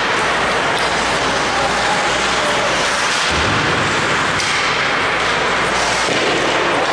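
Ice hockey play on a rink: a steady noisy din of skates on the ice and sticks, with a low thud about three seconds in.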